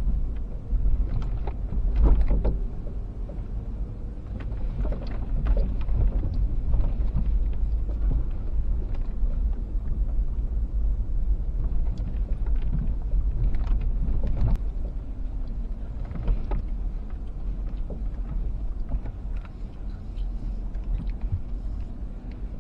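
Toyota 120-series Prado with a V6 and automatic gearbox driving slowly along a rough dirt 4x4 track: a steady low rumble of engine and tyres with frequent knocks and rattles as it goes over bumps. The loudest knocks come about two seconds in and again around fourteen seconds.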